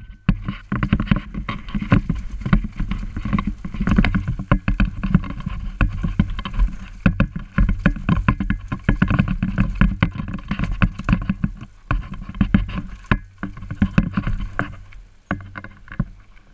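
Bicycle ridden over a rough, bumpy trail: a dense, irregular run of rattles and knocks over a low rumble as the bike jolts across the uneven ground, easing a little near the end.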